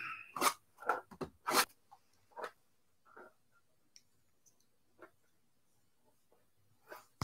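A Topps Clearly Authentic trading-card box being handled and opened by hand: scattered short crinkles, scrapes and light taps. They are busiest in the first couple of seconds and thin out to occasional faint ticks.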